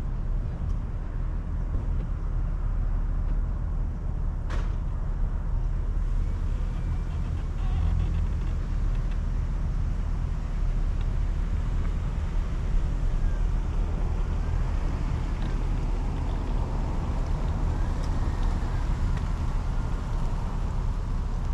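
Vehicle engine running at low speed, a steady low rumble, with a single sharp click about four and a half seconds in.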